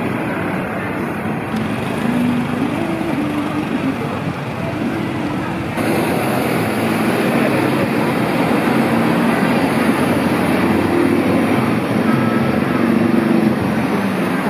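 Busy city street traffic: cars and motorcycles running past in a steady wash of road noise. The sound shifts abruptly about a second and a half in and again about six seconds in.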